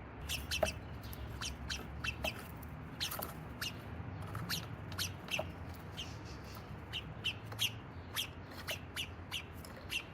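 Small birds chirping: a rapid, irregular series of short, sharp chirps, about two a second, over a low steady rumble.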